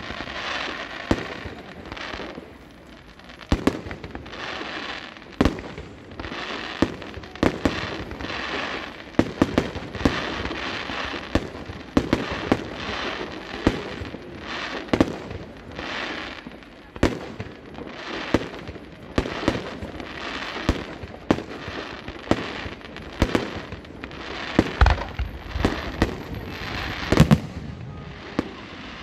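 Fireworks display: aerial shells bursting in a steady run of sharp bangs, about one or two a second, with a crackling hiss between them. The loudest bangs come near the end.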